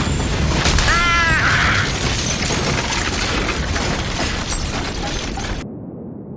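A loud, dense rumbling and hissing sound effect, like a blast, that cuts off sharply about five and a half seconds in. A short arched, pitched cry sounds over it about a second in.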